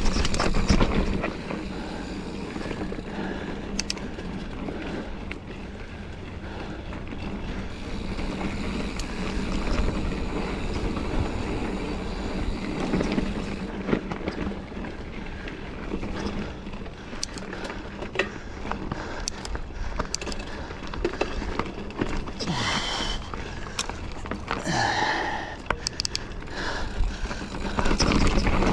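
Giant Fathom mountain bike being ridden over a dirt and rock trail: tyres rolling on dirt and loose rock, with the chain and frame rattling and clicking all the way through.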